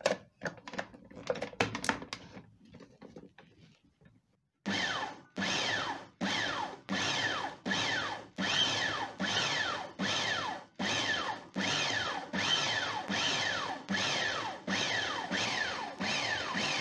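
A few clicks and knocks as the mini food processor's lid and pusher are set in place, then, from about five seconds in, the electric mini food processor pulsed in more than a dozen short bursts, a little over one a second. Each burst starts sharply and slides down in pitch as the blade chops Nile perch fillet into coarse chunks.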